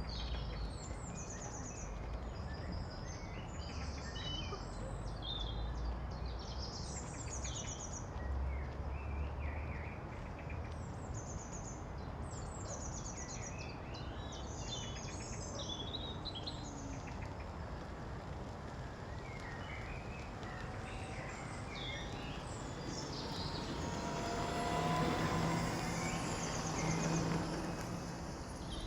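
Outdoor ambience: many small birds chirping and calling over a steady background rush. Near the end an engine passes, a rising and falling swell with a low hum.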